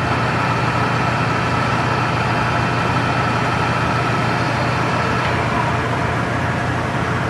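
Enco DSR-750S radial arm drill press running with its spindle turned in reverse: a steady motor and gearbox hum with a higher whine over it. The whine drops away about five seconds in while the low hum carries on.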